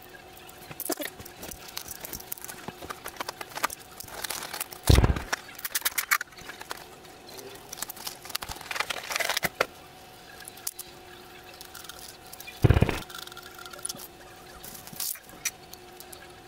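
Hands unpacking a camera and its accessories from plastic and cardboard packaging: scattered rustling, crinkling and clicking of plastic parts, with two dull thumps, about five seconds in and again near the end.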